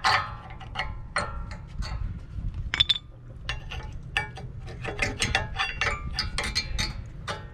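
Old rear brake pads being pried out of a 2016 Mazda 6's caliper bracket with a flat-tip screwdriver: a quick, uneven run of metal clicks, clinks and scrapes.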